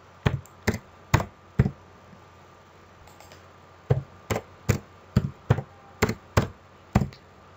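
Computer keyboard keystrokes, pressed one at a time: four in the first two seconds, a pause, then about eight more, evenly paced.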